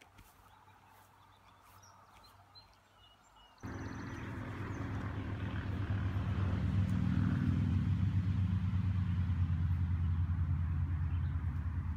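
Faint outdoor quiet with a few soft bird chirps. About three and a half seconds in, a low engine hum cuts in sharply, grows louder over the next few seconds and holds steady.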